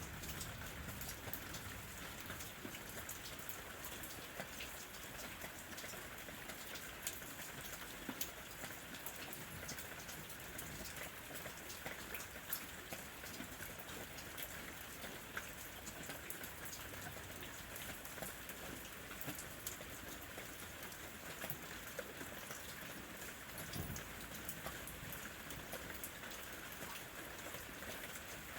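Steady rain falling, with many sharp ticks of single drops striking a surface at irregular moments.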